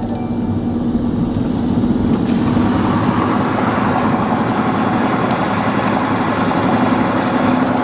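Car driving, heard from inside the cabin: a steady engine hum under road and wind noise, which grows louder about two seconds in.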